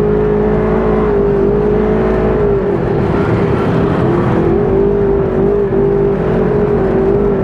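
Engine of a 1000cc dune buggy running under throttle as it drives over sand dunes, its pitch wavering up and down with the throttle and dipping briefly about two and a half seconds in.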